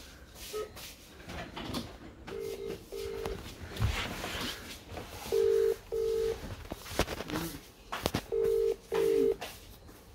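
Mobile phone on speaker playing the ringback tone of an outgoing call that is not yet answered: three double rings about three seconds apart, in the Indian double-ring pattern.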